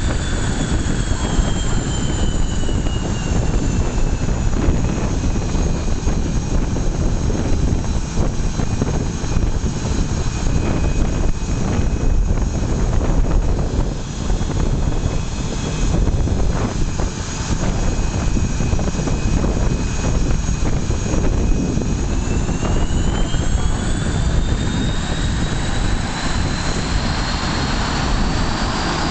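F/A-18 Hornet jet engines running, a steady roar under a high turbine whine. The whine drops in pitch over the first few seconds, holds level, then climbs again from about 22 seconds in.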